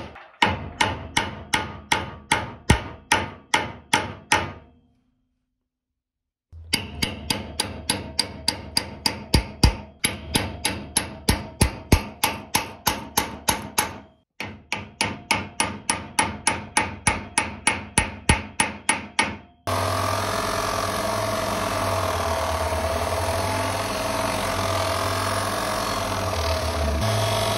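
Hammer blows on a rivet set, about three a second, peening new rivets through a kitchen hatchet's handle on a steel anvil, in three runs broken by short pauses. About twenty seconds in, the blows give way to the steady whine of a motor-driven polishing wheel with the hatchet's steel held against it.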